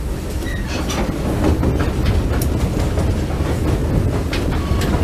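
Railroad train rolling on the track: a steady low rumble of wheels on rail with irregular metallic clacks and knocks.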